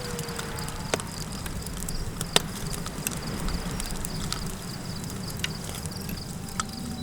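Campfire crackling, with a few sharp pops standing out over a steady low rumble of wind, and a faint, rapid insect chirping high above.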